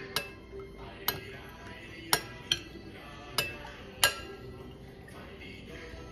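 A spoon clinking against the side of a bowl while cornstarch slurry is stirred: six sharp, irregularly spaced strikes over about four seconds, each ringing briefly.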